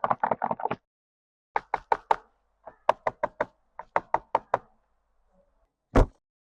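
Quick knocking on a hard surface in rapid bursts of four to eight knocks, with one heavier single knock near the end.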